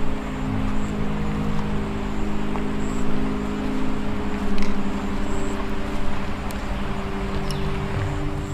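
A low, droning film-score pad: several held tones that shift to new pitches every few seconds, over a steady rushing hiss.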